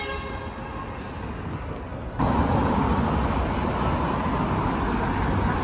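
City street traffic. It is quiet at first with a faint steady whine, then a little over two seconds in it turns into a louder, steady wash of cars passing.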